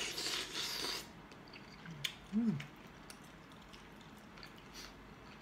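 A person biting into a piece of boiled chicken. There is a noisy burst of mouth sound for about the first second, then soft chewing and mouth clicks, with a short hummed "mm" about two and a half seconds in.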